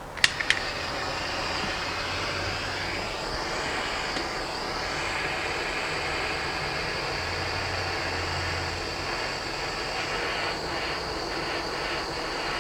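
A few sharp clicks right at the start, then a gas torch flame hissing steadily as it heats brass to melt and flow solder.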